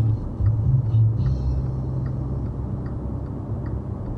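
Car driving along at road speed, heard from inside the cabin: a steady low road and engine rumble, with faint light ticks at fairly even spacing.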